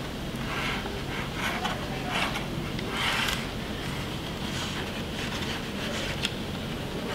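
Foam board pieces being handled on a wooden workbench: a series of short, irregular scrapes and rubs of foam sliding over wood and against other foam.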